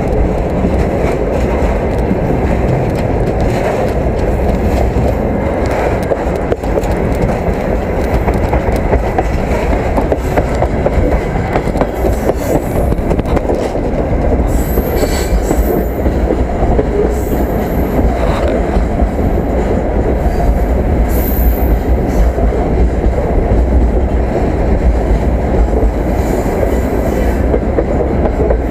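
Moving freight train running over the rails close up, a steady heavy rumble and clatter of wheels and wagons. A few thin high wheel squeals come through about halfway through, while the train is picking up speed.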